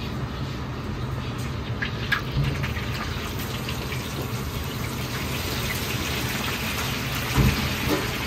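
Sliced eggplant tipped into a wok of hot deep-frying oil, the oil sizzling and bubbling, growing louder after the slices go in, over a steady low rumble. A few metal clinks about two seconds in and a thud near the end.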